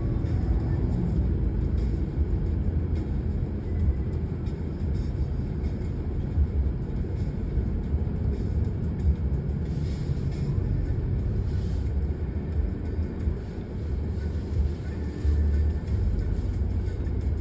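Steady road and engine noise of a car driving, heard from inside the cabin: a deep, even rumble that barely changes.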